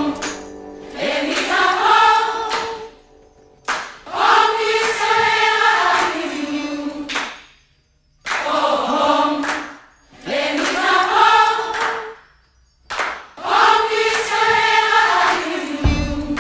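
Background music: a choir singing phrase by phrase, with three short breaks between phrases.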